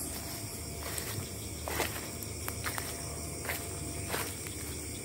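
Footsteps through leaf litter and undergrowth, several irregular steps, over a steady high chorus of night insects.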